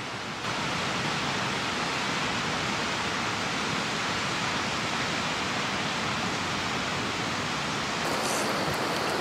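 River rapids: fast water rushing over rocks, a steady even noise.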